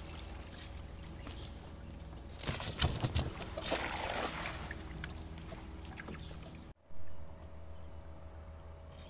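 A hand-thrown cast net splashing down onto river water about three seconds in, a noisy splash lasting around two seconds, over a steady low rumble.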